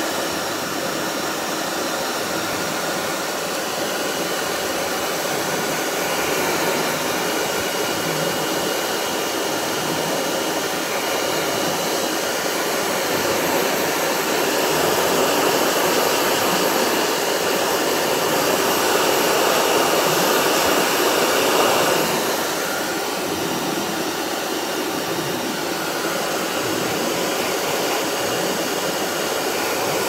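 Handheld hair dryer blowing steadily, a constant rush of air with a faint high whine. It gets somewhat louder for a while and drops back about two-thirds of the way through.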